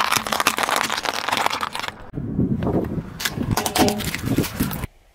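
Dry pasta shells cracking and crunching under a slowly rolling car tyre, a dense run of sharp snaps that thins out briefly about two seconds in.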